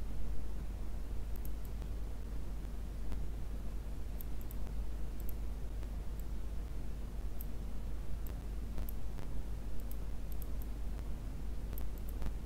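Computer mouse buttons clicking now and then, single sharp clicks at irregular intervals, over a steady low hum and hiss.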